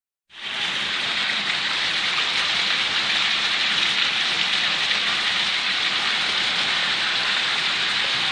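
Heavy rain pouring steadily onto rooftops and a wet street, starting abruptly a fraction of a second in.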